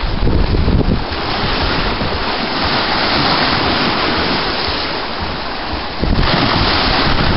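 Nor'easter wind buffeting the microphone over the hiss and wash of choppy storm waves breaking against a concrete shoreline barrier. The low rumble of the wind gusts eases for a few seconds in the middle while the surf hiss carries on, and comes back hard about six seconds in.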